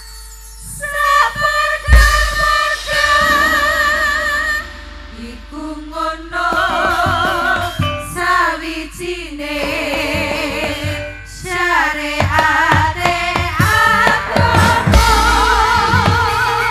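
A group of women singing a Javanese campursari song together in phrases, their voices wavering with vibrato, with short breaks between phrases. Percussion strikes and low drum thumps sound behind them.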